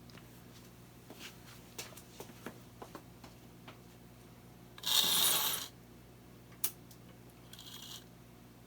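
Plastic packaging being handled and unwrapped from a small model locomotive: light scattered clicks and rustles, a brief loud crinkle of plastic wrap about five seconds in, a sharp click, and a shorter crinkle near the end.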